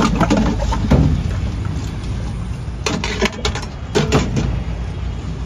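Metal clinks and knocks as a steel ice-cream tub and its steel lid are handled, a few near the start and a cluster about three to four seconds in, over a steady low rumble.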